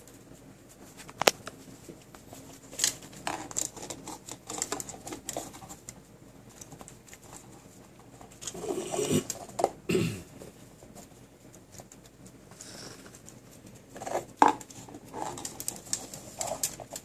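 A small dog licking out an empty plastic yogurt cup while pawing and pushing it across a wooden floor. The plastic gives irregular taps, knocks and scrapes on the boards, busiest in the middle and near the end.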